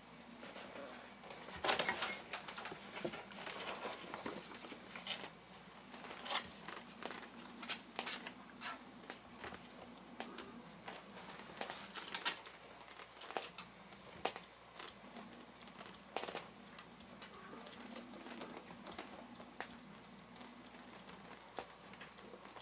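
Kittens' paws and claws clicking and scuffling on bare wooden floorboards: light, irregular ticks and scratches, busiest about two seconds in, with a sharp click about twelve seconds in.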